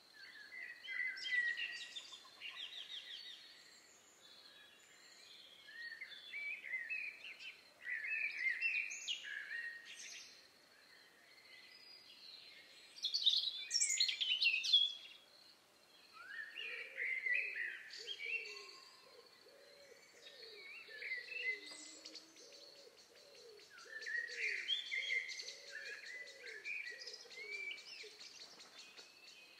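Forest ambience of songbirds singing in phrases every few seconds over a faint steady high tone. Through the middle stretch a low, short call repeats about once or twice a second beneath the song.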